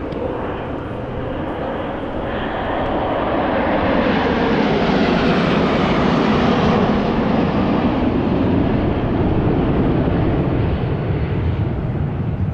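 An airplane's engine noise as it flies past, swelling to its loudest about halfway through with the pitch dropping as it passes, then staying loud.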